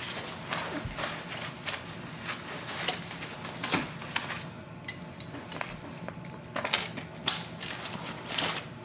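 Irregular clicks, taps and clatter of play yard parts being handled and fitted together during assembly, with a sharper knock about seven seconds in.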